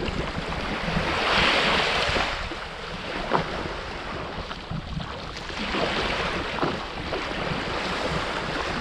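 Sea waves breaking and washing in, swelling twice, with wind rumbling on the microphone.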